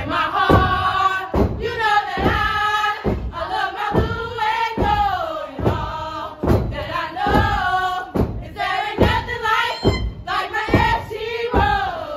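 A group of women chanting in unison in a sung, call-like step-show chant, with heavy stomps striking under the voices every half second or so.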